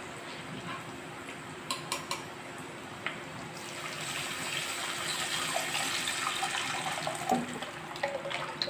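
Thick tamarind water mixed with ground masala poured from a vessel into a pot of onions frying in oil. A steady splashing pour builds from about three and a half seconds in.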